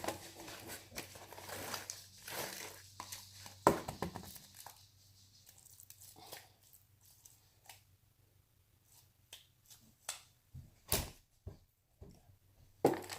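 Hands handling things: rustling and crinkling in the first few seconds with a sharp click, then a few separate clicks and knocks.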